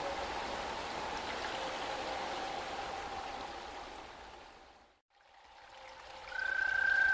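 Background music: an ambient track with a noisy wash and a few held notes fades out to silence about two-thirds of the way through. The next piece then fades in on a held high note.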